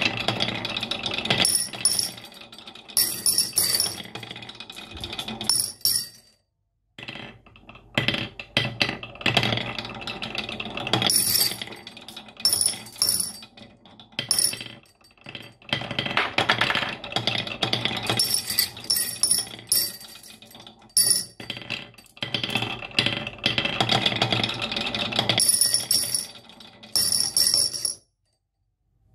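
Glass marbles rolling and clattering down a wooden marble run: a dense stream of clicks and rattles with a ringing edge. It cuts to silence briefly about six seconds in and again near the end.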